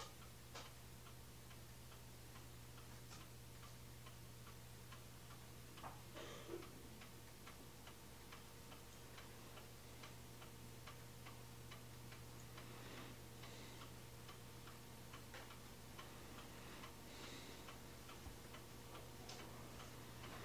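Near silence: room tone with a faint steady hum and light, evenly repeated ticking, and a brief soft noise about six seconds in.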